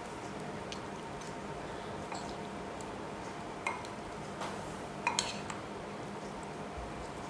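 Chicken being mixed with spices in a bowl: a few light, scattered clinks and taps against the bowl, the sharpest pair about five seconds in, over a faint steady hum.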